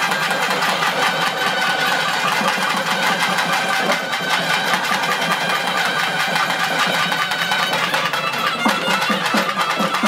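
Naiyandi melam: nadaswarams playing a held, reedy melody over thavil drums beating a steady rhythm. The drum strokes come through more strongly near the end.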